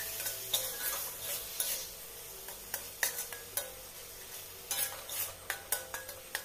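A metal spatula scraping and knocking irregularly against a kadai as it stirs a thick spice masala paste, with a sizzle underneath. The masala is being fried down (kosha) until its oil separates.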